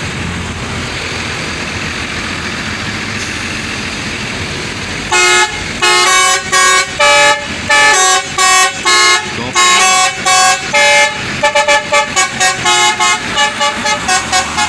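Vehicle engine and road noise, then about five seconds in a bus's basuri telolet horn plays a tune of separate pitched toots at changing pitches. Near the end the notes come quicker and shorter.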